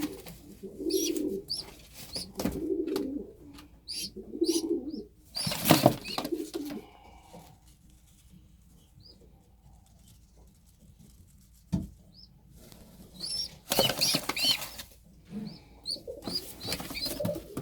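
Pigeons cooing, with two loud bursts of wing flapping, about six seconds in and again a few seconds before the end, and a quieter stretch between them.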